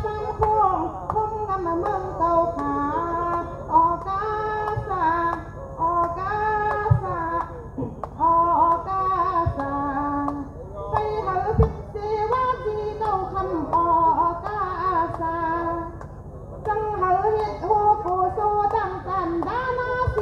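A woman singing solo into a handheld microphone, in melodic phrases with long held notes and short pauses between lines. A few brief low thumps come through the microphone.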